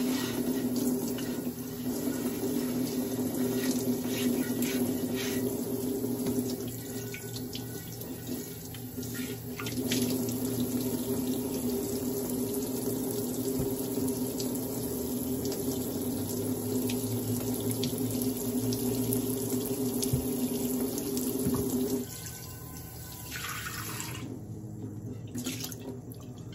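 Kitchen faucet running, its stream splashing over a terracotta clay pan lid and into a stainless steel sink as the lid is rinsed by hand. Near the end the flow drops sharply to a thin trickle.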